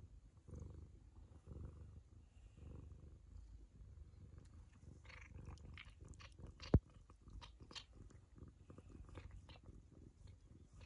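Ragamuffin cat purring in low, even pulses, then licking a baby's head, with many small wet tongue clicks in the second half. One sharp click about two-thirds of the way through is the loudest sound.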